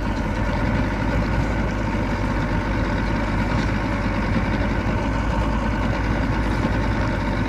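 Boat's outboard motor running steadily, a constant low engine hum.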